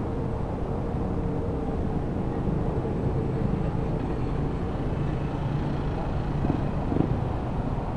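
Honda ADV 160 scooter riding along, its single-cylinder engine running steadily under road noise, with a brief bump about seven seconds in.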